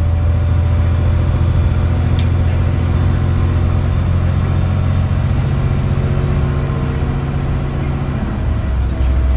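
ADL ALX400 Trident double-decker bus on the move, heard from the upper deck: a steady low diesel engine drone with road and body noise. The engine note drops lower near the end.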